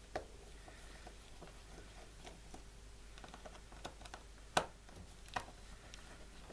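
Faint scattered clicks and ticks of a small Torx screwdriver working the tiny chassis screws of a Nokia 6230i mobile phone. Three sharper ticks stand out: one just after the start and two a little past halfway.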